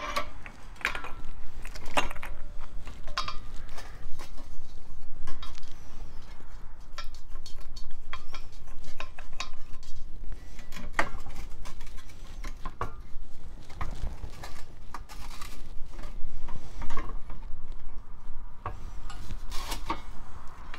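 A propane regulator pigtail hose being handled and its fitting threaded onto a propane tank valve: rubbing and scraping of metal and rubber with scattered clicks and knocks, over a steady low rumble of road traffic.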